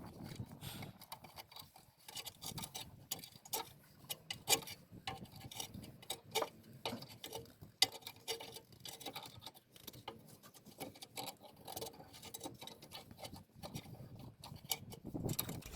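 Irregular metallic clicking and ticking, several clicks a second, of a brake piston wind-back tool being turned, screwing the rear brake caliper piston back into its bore to make room for new, thicker pads.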